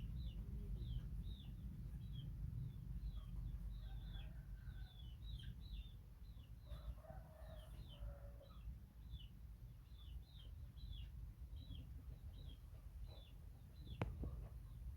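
Young chicks peeping: short high chirps, each falling in pitch, repeated two or three times a second, over a low rumble. A single sharp knock near the end.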